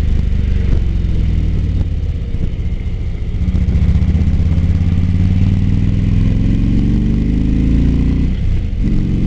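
Motorcycle engine accelerating after a turn: its note climbs steadily for several seconds, then drops sharply about eight seconds in as it shifts up a gear and pulls on.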